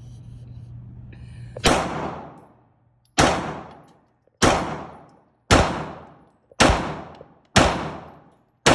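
Gunfire: seven single shots, evenly paced about a second apart, each ringing out with a short echoing tail.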